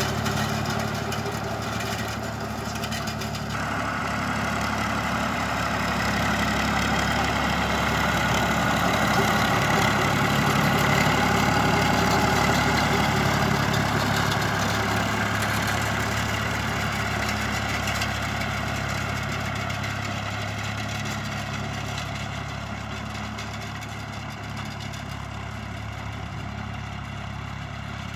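Massey Ferguson 135 tractor engine running steadily while pulling a rotary hay rake, growing louder toward the middle and then fading as the tractor drives away.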